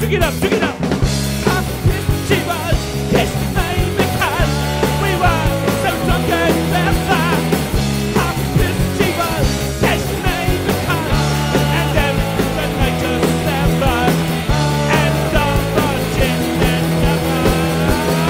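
Loud rock band music with a steady beat and a wavering melodic line over it.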